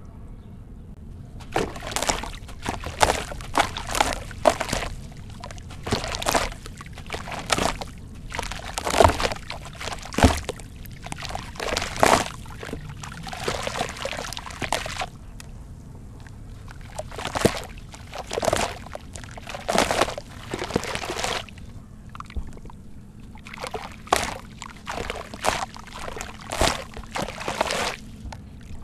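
Hands sloshing in a basin of water and letting crumbled sand-cement and gritty slurry pour and trickle back into it, in repeated splashing bursts with a couple of short pauses.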